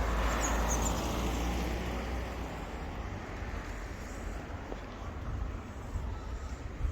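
A road vehicle passing close by: its engine and tyre noise is loudest over the first second and fades away over the next few seconds, leaving a steady low traffic rumble.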